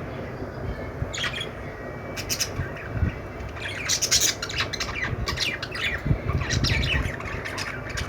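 Budgerigars chirping and squawking in scattered bursts, busiest in the second half, over a steady low background rumble.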